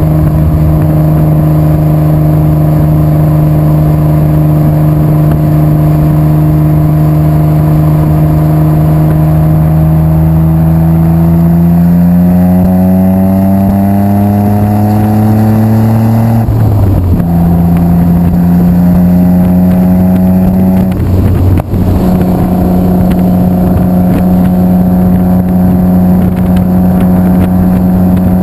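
Nissan Skyline R32 GT-R's RB26DETT twin-turbo straight-six heard at the tailpipe through a Mine's aftermarket muffler while driving: a steady drone, its pitch rising as the car accelerates through the middle, then a short break and a drop in pitch at an upshift just past halfway. It settles back into a steady cruise, with one more brief dip a few seconds later.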